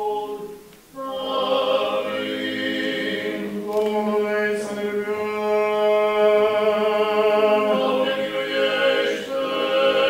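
Orthodox church chant: voices sing long, held notes that change every few seconds over a steady low note held underneath, with a brief break about a second in.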